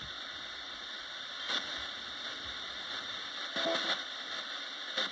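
Roberts radio hissing with static, with short crackly bursts about a second and a half in and again near four seconds.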